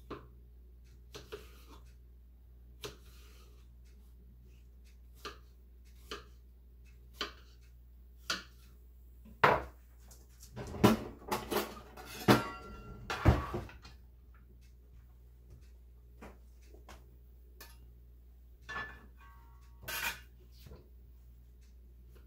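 Kitchen knife cutting a cucumber into cubes on a plastic cutting board: sparse sharp taps of the blade hitting the board, about one a second. About halfway through comes a denser, louder run of knocks and clinks with a little ringing, and a few more taps follow near the end.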